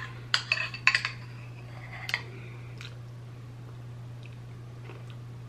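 Metal spoon clinking and scraping against a bowl while scooping ice cream: several quick clinks in the first second, one more about two seconds in.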